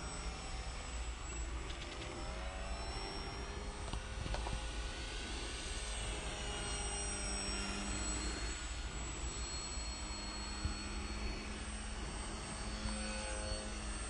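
Multiplex ParkMaster electric aerobatic model aeroplane, its motor and propeller whining overhead with the pitch rising and falling as it manoeuvres and passes by.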